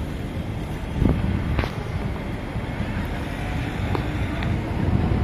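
SMRT C151A metro train pulling away along an elevated track: a low rumble of the train that grows louder, with a couple of sharp clicks about a second in, under wind noise on the microphone.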